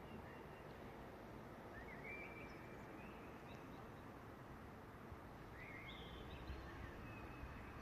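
Faint, steady city traffic hum with small birds chirping a few short calls over it.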